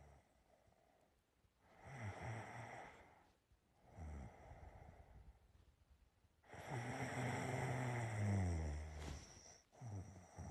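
A person snoring while asleep: short snoring breaths about two and four seconds in, then a longer, louder snore with a low buzzing vibration from about six and a half to nine seconds, and another breath starting near the end.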